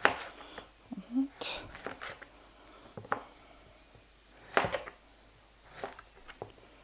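Kitchen knife slicing a small zucchini into rounds on a plastic cutting board: a few separate knocks of the blade against the board, the loudest a little past halfway.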